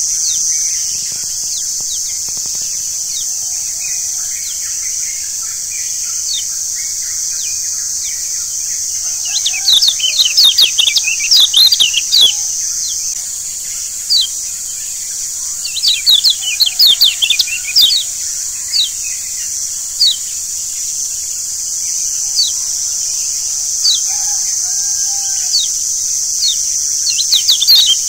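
Yellow white-eyes (kecial kuning, a Zosterops) chirping in quick clusters of sharp high notes, busiest about ten to thirteen seconds in and again around sixteen to eighteen seconds, over a steady high hiss. A few short, lower calls sit underneath.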